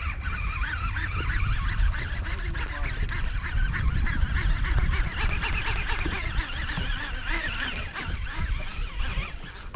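A flock of birds calling over and over, many short overlapping calls, over a steady low rumble of wind on the microphone.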